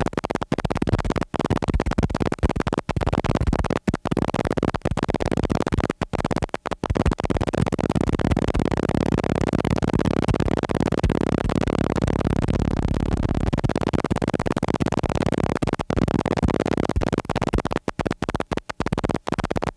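Background music with no speech, the sound breaking off in many brief, sharp gaps.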